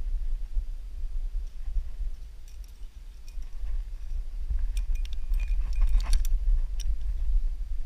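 Metal carabiners of a climbing quickdraw clinking and jingling as a hand grabs it, a quick cluster of sharp clinks with a little ringing about five to seven seconds in, over a low wind rumble on the microphone.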